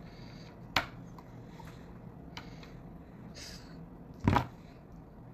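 Faint steady room hum with a light click about a second in and a louder, dull knock just after four seconds: handling noise from things being moved on a tabletop.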